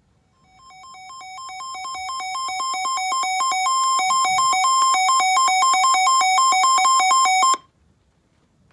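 Weather alert radio's electronic alarm going off for an incoming special marine warning: rapid beeps alternating between two pitches. It grows steadily louder for about seven seconds, then cuts off abruptly.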